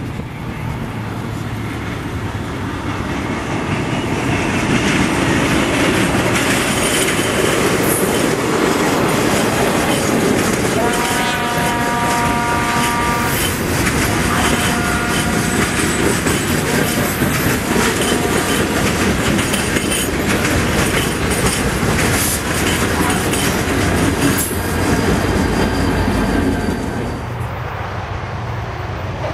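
CSX freight train of boxcars rolling past: a steady rumble and clatter of steel wheels over the rails, building over the first few seconds. A pitched tone sounds for a couple of seconds midway. Near the end the sound cuts off abruptly to quieter outdoor sound.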